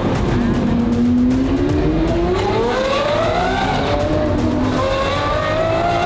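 Lamborghini Aventador SVJ's V12 accelerating hard. The engine note climbs steadily in pitch, drops back with a gear change about four seconds in, then climbs again in the next gear.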